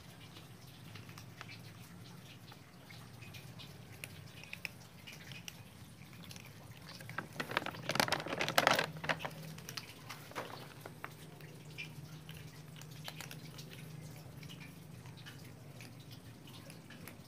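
Cats eating cat food: a scattered patter of small chewing and smacking clicks, with a louder cluster of clatter about eight seconds in.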